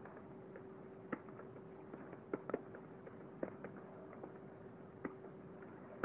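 Computer keyboard keystrokes: a handful of scattered key presses, some singly and a couple in quick pairs, over a faint steady hum.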